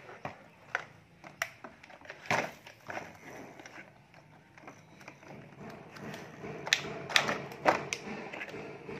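Plastic toy vehicles clicking and knocking together as a toy crane truck lifts and tips a toy truck: irregular light taps and handling rustle, with a few louder clacks about seven to eight seconds in.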